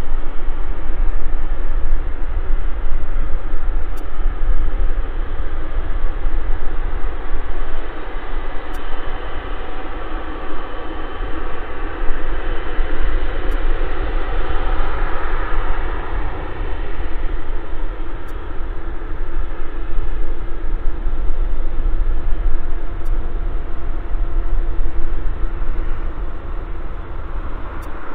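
Boeing 777F freighter's GE90 turbofan engines running at taxi power: a steady jet whine with several held tones over a low rumble, swelling briefly about halfway through.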